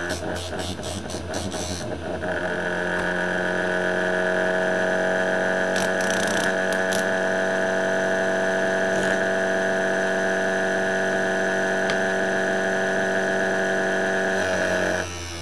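A CD-drive spindle motor run from a 9 V battery spins a disc at high speed with a steady whine and hum. For the first two seconds or so the sound is rough and uneven, with scraping ticks, as a finger rubs the disc's edge. Then the motor settles, its pitch rising a little, and it runs evenly until it is disturbed again near the end.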